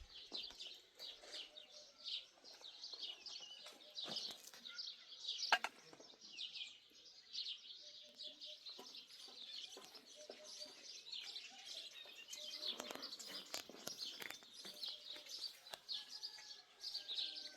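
Many small birds chirping in a continuous, overlapping chorus of quick high chirps. A few sharp knocks are heard, the loudest about five and a half seconds in.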